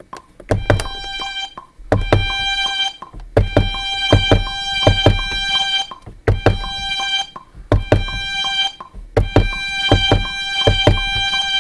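A beat played on a Maschine pad sampler: drum hits with a deep kick under a short, chopped pitched sample tone. The pattern is a loop that restarts about every three seconds.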